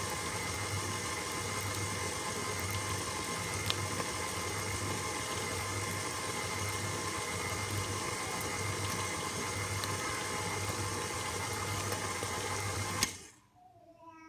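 Electric stand mixer running steadily with its flat paddle, beating cooled sugar syrup into a thick white fondant in a stainless steel bowl, with a motor hum and a faint whine. The motor sound cuts off abruptly about 13 seconds in.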